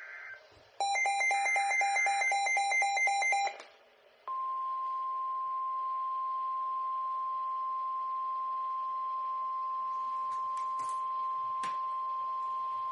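The end of a SAME digital data burst, then about three seconds of fast electronic beeping. About four seconds in, the steady single-pitch NOAA Weather Radio warning alarm tone starts and holds for about nine seconds, with a few faint clicks near the end. This is the alert that comes before a warning message is read.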